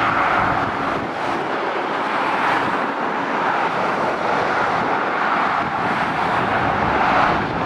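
Steady roar of motorway traffic, tyres on asphalt and engines, as a Volvo FH tipper lorry and cars approach and pass below, swelling slightly near the end.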